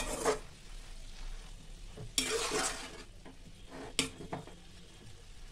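Metal spatula stirring and scraping soya chunks and shredded cabbage in a kadhai, over a light frying sizzle. There are scraping strokes at the start and about two seconds in, and a sharp clink of the spatula against the pan about four seconds in.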